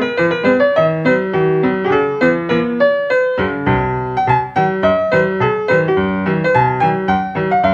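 Background piano music: a quick tune of many short notes, with a brief pause about three and a half seconds in.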